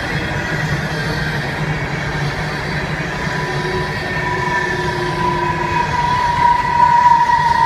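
Loaded coal hopper cars of a long freight train rolling past at speed, a steady rumble of wheels on rail. From about three seconds in, a high, steady wheel squeal rises over the rumble and grows louder toward the end.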